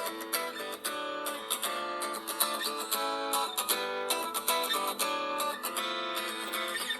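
Samsung Galaxy Note 3 Neo ringtone playing: a plucked and strummed acoustic guitar tune.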